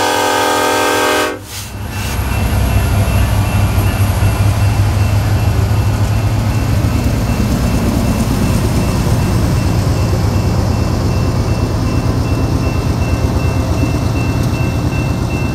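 A freight diesel locomotive's multi-chime air horn sounds a chord that cuts off about a second in. Then the lead diesel locomotives rumble past close by, giving way to the steady rolling of tank-car wheels on the rails, with a thin steady high tone in the later part.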